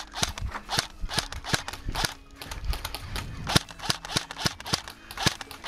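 Airsoft gun firing single shots in quick, uneven succession, about three sharp cracks a second.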